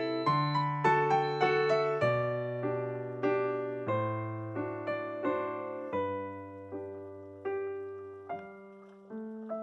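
Background piano music: a gentle melody of struck notes over held bass notes. It thins out and grows quieter in the second half, with the notes spaced further apart.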